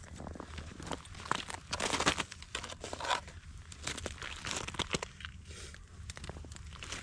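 Irregular crunching and crinkling, loudest about two seconds in and again about four to five seconds in, typical of boots stepping on snow over lake ice.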